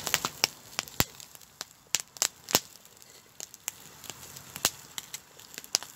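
Wood fire crackling, with irregular sharp pops and snaps over a low hiss.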